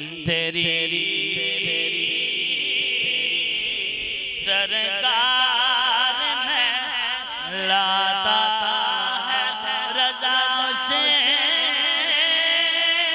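A man singing a naat, an Urdu devotional chant, solo into a microphone, with long wavering held notes that swell about four and a half seconds in.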